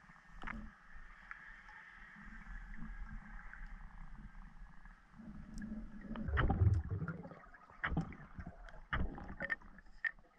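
Underwater sound heard through a camera housing: a low steady hum with scattered muffled knocks and sharp clicks, and a heavier low thud about six and a half seconds in.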